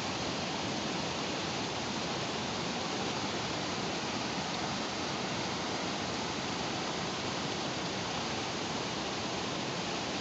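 Muddy floodwater rushing steadily over rocks, an even, unbroken noise of flowing water.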